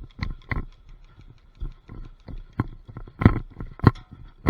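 Footsteps and gear knocks of an airsoft player moving on foot: a run of irregular thuds, the heaviest two about three and four seconds in.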